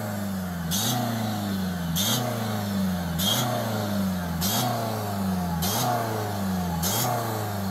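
Emergency-vehicle siren cycling over and over, each cycle a sharp rise in pitch followed by a slower fall, a little under once a second.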